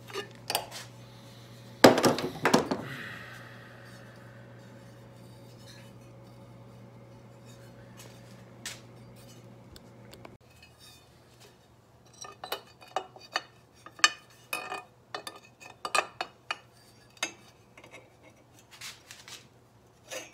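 Metal exhaust pipe parts clanging and clinking as they are handled: one loud ringing clang about two seconds in, then an irregular run of light metal clinks and taps in the second half. A low steady hum underneath stops about halfway through.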